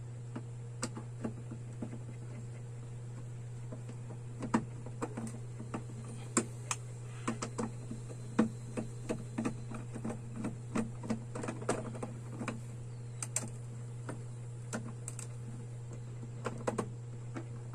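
Irregular small clicks and taps of a screwdriver and a plastic lamp holder as the lamp holder is fitted and screwed onto a junction box. The clicks are busiest in the middle and sparse near the start and end, over a steady low hum.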